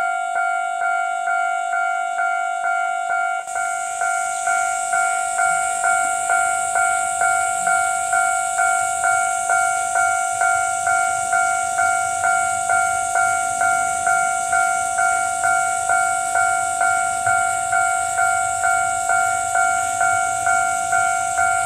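Japanese railway level-crossing alarm ringing steadily, an electronic two-tone ding repeating about twice a second. Underneath, an Ohmi Railway electric train approaches with a faint low rumble, and a high steady hiss comes in about three and a half seconds in.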